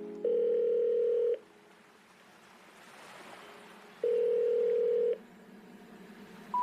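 Telephone ringback tone: two steady, identical beeps, each about a second long and about four seconds apart, with faint hiss between them.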